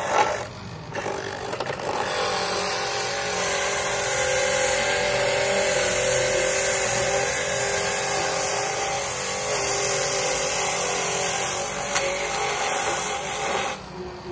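Honsu electric coconut grater running steadily, its motor-driven toothed drum shredding coconut flesh pressed against it by hand. The sound dips briefly about a second in and again near the end.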